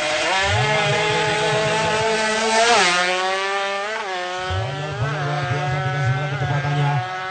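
Racing motorcycle engines revving hard, climbing steeply in pitch to a peak about three seconds in, then dropping and wavering through further revs.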